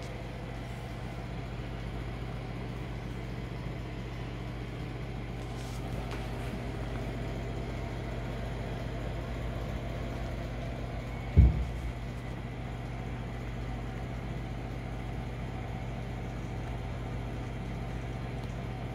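Steady low hum, with one short low thump about eleven seconds in.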